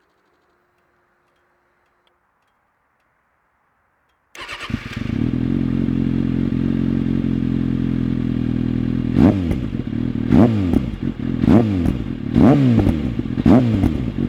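Kawasaki ZX-6R 636 inline-four motorcycle engine starting about four seconds in after near silence, idling steadily, then revved in a series of short throttle blips about once a second.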